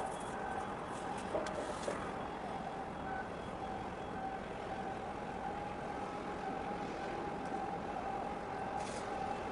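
Steady mechanical drone with a constant mid-pitched whine, and a few faint clicks between one and two seconds in.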